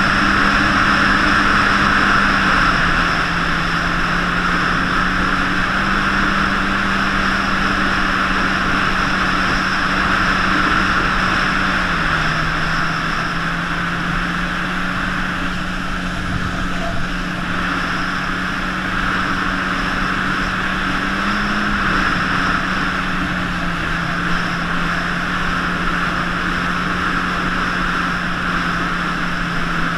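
Sea-Doo RXP-X 260 jet ski engine running at a steady cruise, its drone dropping or rising slightly a few times as the throttle is eased and reopened. A steady rush of wind and water runs underneath.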